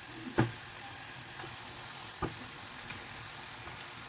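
Raw marinated chicken pieces being laid into a metal kadai of frying onion, tomato and potato: a soft knock about half a second in and another about two seconds in as pieces land in the pan, over a faint steady sizzle.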